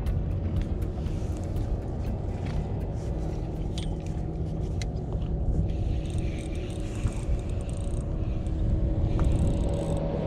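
Steady low rumble aboard a small boat at sea, with scattered faint clicks.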